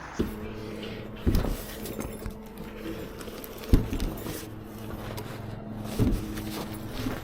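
A steady machine hum with a handful of sharp knocks, about four, spread across it.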